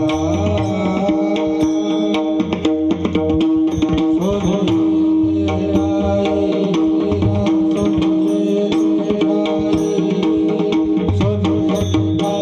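Mridang (pakhawaj) drumming, a fast, dense run of strokes over a steady held accompanying note.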